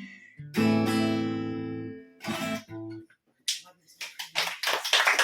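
Two acoustic guitars strike a final chord that rings out, then play a couple of short closing notes. Near the end a small audience starts clapping.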